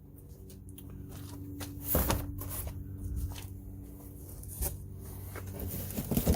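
Packaging rustling and parts clicking as they are handled and unpacked, with a louder rustle about two seconds in, over a steady low hum.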